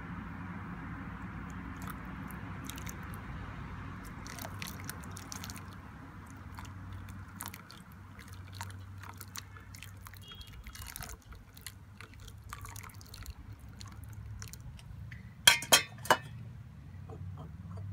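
Water poured from a stainless steel saucepan over an apple in a glass bowl, trickling and dripping in small scattered splashes. Near the end the metal pan knocks down three times in quick succession, the loudest sounds.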